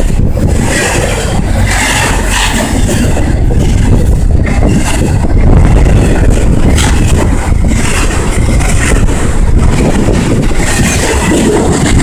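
Double-stack freight train rolling past at close range: a loud, steady rumble of steel wheels on the rails with irregular clacking.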